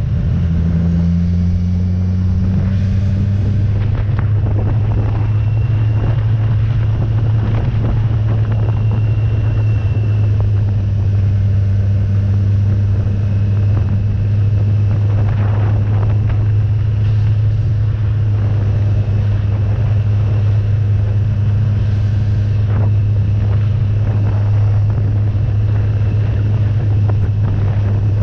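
Motorcycle engine running at a steady cruising speed, a loud low drone, with wind rushing over the microphone.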